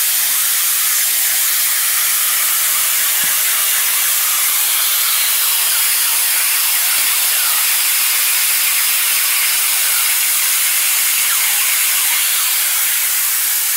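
CNC plasma cutter's torch cutting 3/16-inch steel plate: a loud, steady hiss that runs without a break.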